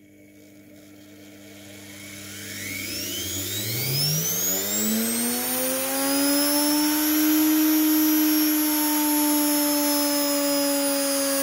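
Brushed washing-machine motor spinning up on a speed controller: a low hum, then from about three seconds in a whine rising steeply in pitch for about four seconds before holding steady at high speed, easing slightly lower near the end.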